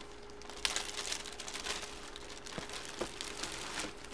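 Clear plastic bag around a jersey crinkling and rustling as it is handled, with a few sharp crackles, starting about half a second in.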